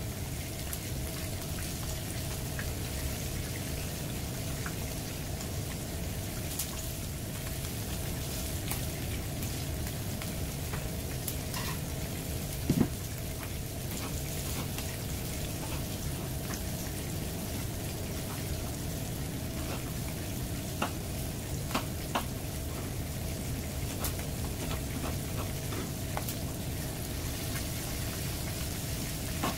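Two flour-coated whole sea bass shallow-frying in hot oil in a frying pan: a steady sizzle with scattered small pops and crackles.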